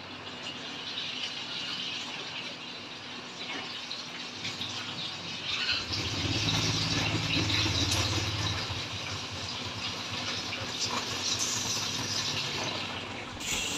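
Fish frying in hot oil in a pan, a steady sizzling hiss, with a low hum joining for a couple of seconds in the middle.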